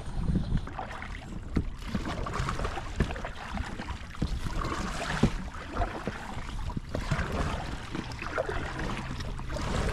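Double-bladed paddle strokes splashing in lake water beside an inflatable kayak, with wind rumbling on the microphone.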